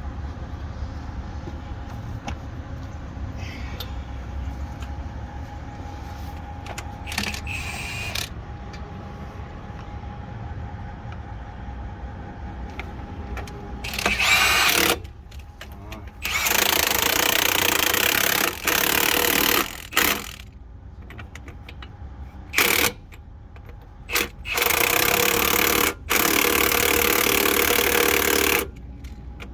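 Pneumatic impact wrench running in repeated loud bursts of one to two seconds, starting about halfway through, with a steady low hum underneath before the bursts begin.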